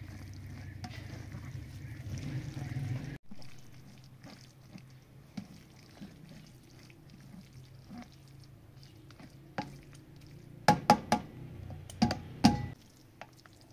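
Wooden spoon pressing and scraping cooked fruit pulp through a plastic colander, with wet squelching and small clicks, then a few sharp knocks of the spoon against the colander near the end. A steady low hum at the start cuts off suddenly about three seconds in.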